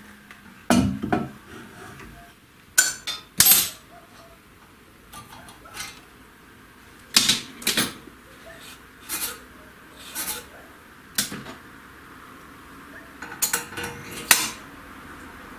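Metal tools and parts being handled, clinking and knocking irregularly about once a second, some knocks with a short metallic ring.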